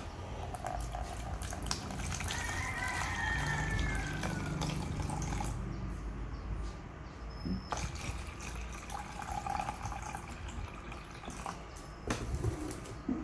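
Water pouring into a measuring cup, with the pitch of the splashing shifting as the cup fills; a couple of light knocks follow later.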